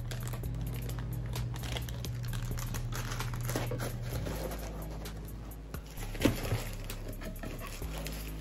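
Packaging crinkling and rustling as a new camera's box is opened and the camera is taken out of its protective wrap, with a couple of light knocks about six seconds in.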